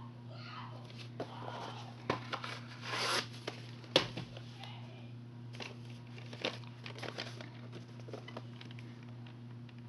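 VHS tape sleeves and cases being handled as one tape is pulled from a row: irregular cardboard-and-plastic rustling and clicking, with a sharp knock about four seconds in. A steady low hum runs underneath.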